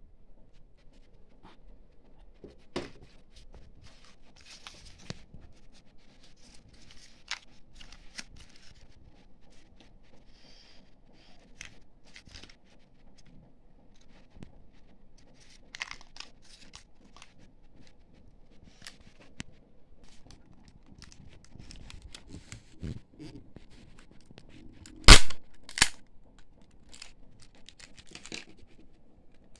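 Plastic surprise-egg wrappers crinkling and tearing by hand, with scattered small plastic clicks and rustles as the capsules are opened and toy cars taken out. Near the end come two loud sharp snaps, less than a second apart.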